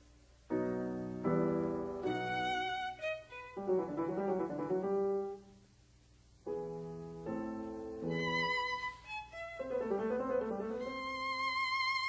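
Instrumental background music: a melody of held notes with vibrato. It stops for about a second midway, then resumes.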